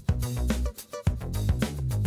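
Background music: an upbeat instrumental track with a steady drum beat and a bass line.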